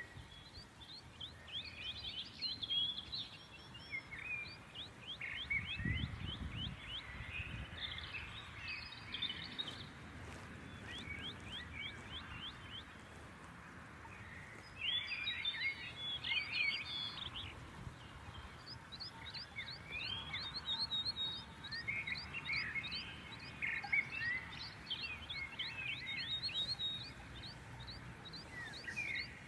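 Small birds chirping and twittering in quick runs of short, high chirps, over a low steady background noise.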